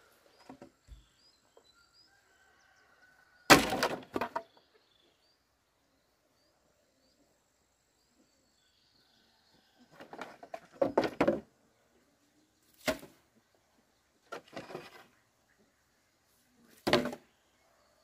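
Irregular sharp impacts, about five bouts, the loudest about three and a half seconds in, with faint high chirps in the quiet between them.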